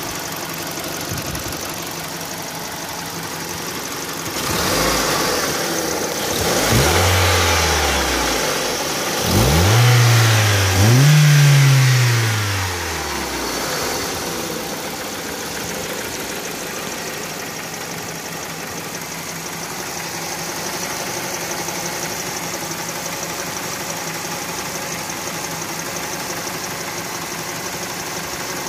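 Ford 2.0L Split Port four-cylinder engine idling, revved several times between about four and thirteen seconds in, each rev rising and falling back to a steady idle.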